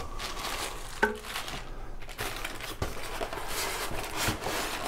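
Packing material crinkling and rustling as parts are handled and unwrapped, with one short knock about a second in.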